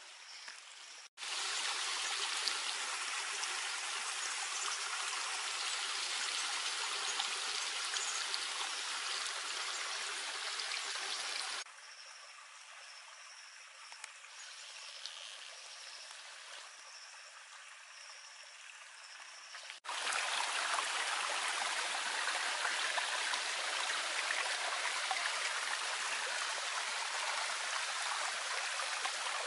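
Water running and trickling from small spouts in a miniature mud dam and streaming down a dug channel into flooded toy rice paddies. It is a steady rushing sound that drops quieter for several seconds in the middle, then comes back loud.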